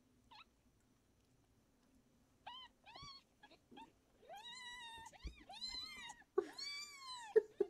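Young nursing kittens mewing: after a quiet start, a run of about six high-pitched mews from about two and a half seconds in, growing longer and louder.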